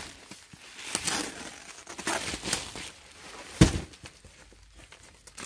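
Plastic pallet stretch wrap crinkling and rustling as a large cardboard carton is handled, with a single heavy thump a little past halfway as the box is set down.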